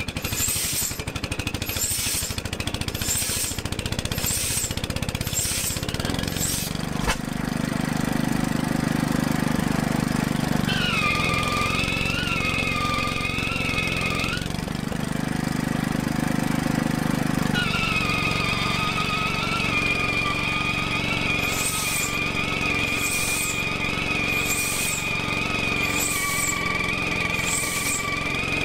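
Rubber drive wheel squealing against the flywheel of a circa 1926 Reid Type A two-stroke gas engine as it is spun over to start, the engine not yet catching. A steady high squeal that wavers a little in pitch, with a regular beat about once a second for the first few seconds and again near the end, and a low hum that swells and fades twice in the middle.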